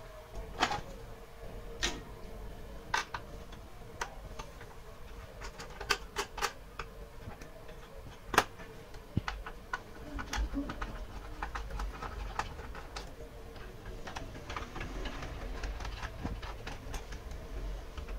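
Irregular plastic clicks and knocks from hands handling parts inside an opened desktop PC case: the plastic CPU air shroud being lifted out and cable connectors being unplugged. The sharpest click comes about eight seconds in.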